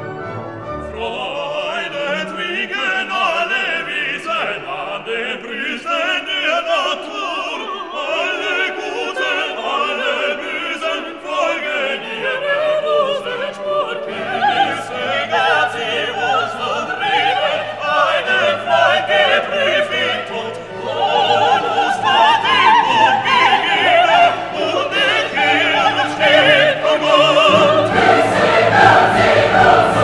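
Classical choral music with orchestra: voices singing over strings. It swells louder about two-thirds of the way through.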